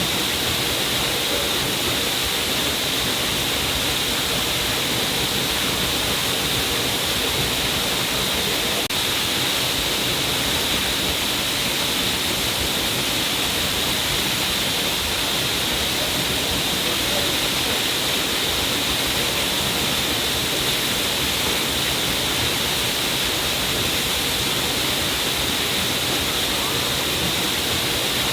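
Stream of water falling down a cliff, a steady, unbroken rushing hiss with its brightest part in the upper range.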